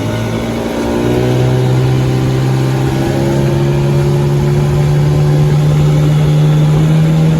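1995 Johnson 25 hp two-stroke tiller outboard accelerating under throttle. Its pitch jumps up about a second in, then climbs steadily as it builds toward full throttle, getting louder.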